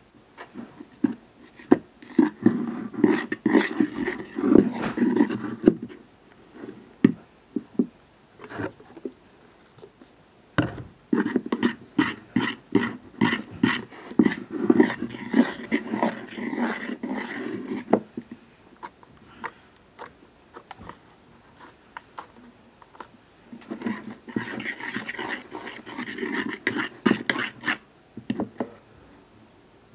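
A spoon stirring sticky glue slime in a plastic bowl: wet squelching with quick clicks of the spoon against the bowl, in three bouts with short pauses between. The slime is still forming after contact-lens solution was added and is still sticky.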